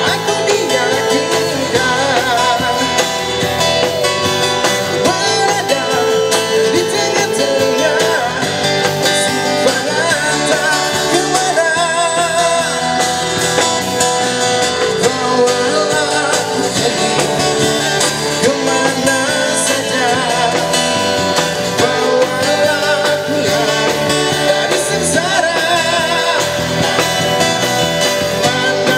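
Live amplified band music: a male singer singing into a microphone over electric bass and acoustic guitar, steady throughout.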